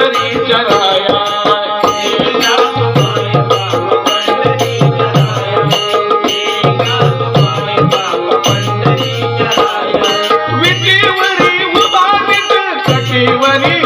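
Instrumental music of a Marathi devotional abhang: tabla-like hand drums keep a steady beat under held melodic instrument tones, with a wavering melody line coming in near the end.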